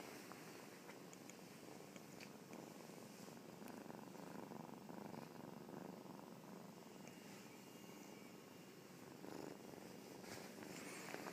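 Kitten purring steadily and faintly, close to the microphone.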